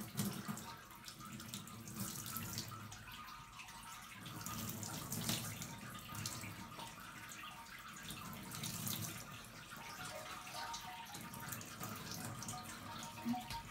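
Warm water poured from a plastic basin over a wet kitten, splashing and trickling unevenly into the bath below: the final rinse that washes the shampoo lather out of her coat.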